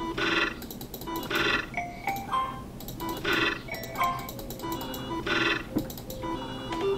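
Electronic sound effects of the Novomatic Power Stars online slot game: repeated chiming bursts as the reels spin and stop, and a few short rising beeps as a win is paid out.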